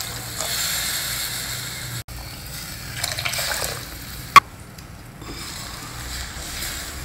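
Water poured from a steel vessel into a pressure-cooker base of pea gravy, splashing and gushing into the liquid. About four seconds in there is a single sharp clink, then a wooden spatula stirring the thinned gravy more quietly.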